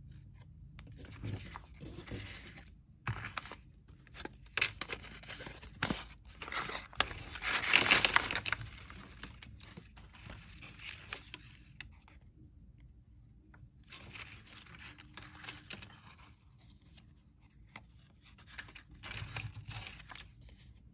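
Paper handling: cut-out paper pieces, cards and handmade envelopes rustling and scraping as they are shuffled and set into a small box, with scattered light taps. The rustling comes in irregular spells with pauses, loudest about eight seconds in.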